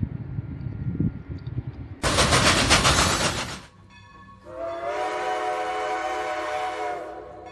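Low rumble of a train running, then a sudden loud rushing burst about two seconds in that lasts a second and a half. After a short lull, a train horn sounds a steady chord of several notes for about two and a half seconds.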